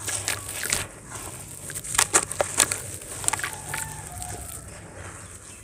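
Chunks of gritty, water-soaked sand crushed and crumbling between the hands in a tub of water: a string of sharp crunches and crackles, loudest about two seconds in, with the crumbled grains dropping into the water.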